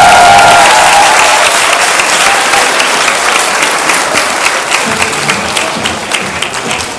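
Audience applauding, a dense patter of clapping that slowly fades; the music's last held note stops about a second in.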